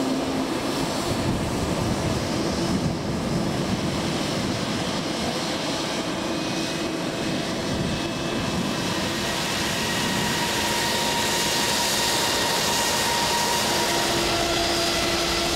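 Mitsubishi Regional Jet's Pratt & Whitney PW1200G geared turbofan engines running on the ground: a steady rushing noise, with several high whining tones that come in about halfway through and hold.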